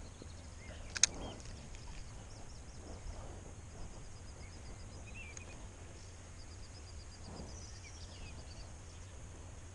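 Small birds singing from the reeds, a continuous run of quick high chirps, over a low steady hum. A single sharp click sounds about a second in.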